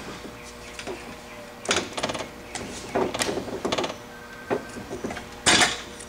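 A wheelchair wheel being tapped by hand to knock it up off the metal pegs of a vise-mounted tire installation tool: a series of irregular knocks and rattles about a second apart, the loudest near the end as the wheel comes free.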